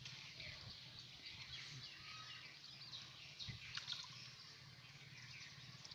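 Quiet outdoor ambience with faint, scattered bird chirps over a low steady hum, and a couple of faint knocks about three and a half to four seconds in.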